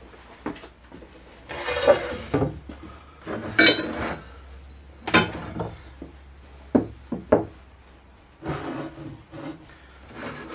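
Steel bar stock being picked up, set down and slid on a wooden workbench: a string of knocks and clinks with some scraping, about six in all, with a faint low hum underneath.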